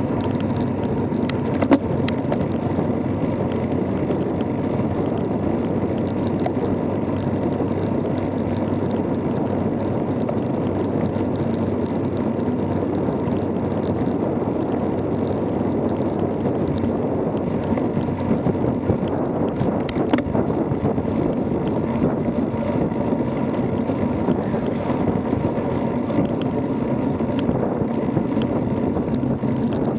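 Steady rush of riding wind on the microphone together with road-bike tyre noise on asphalt, with a sharp click about two seconds in and a few fainter ones later.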